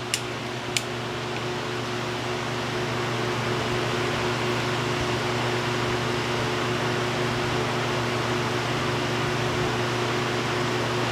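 Steady mechanical hum from running shop equipment: an even rushing noise with a low droning tone, growing slightly louder over the first few seconds. Two light clicks come within the first second.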